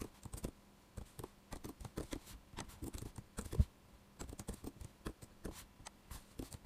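Typing on a computer keyboard: a run of quick, irregular key clicks, faint, with a short pause a little past halfway through.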